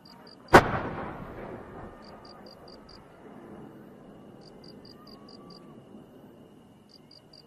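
A large aerial firework shell fired from its mortar: one loud boom about half a second in, echoing away over a second or so. The shell then climbs unseen by ear while faint high chirps repeat in short groups in the background.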